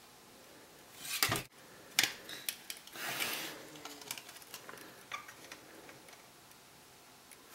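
Playing cards being handled on a tabletop while building a card house: light clicks and taps of cards being set and slid, with a brief rustle around three seconds in. A soft thump comes about a second in.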